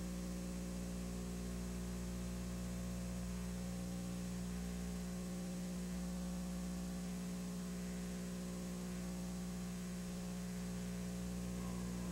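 Steady electrical mains hum with a stack of even overtones over a faint hiss, and no other sound.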